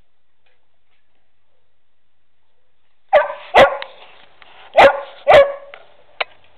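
A dog barking four times, in two quick pairs about a second apart, loud and close.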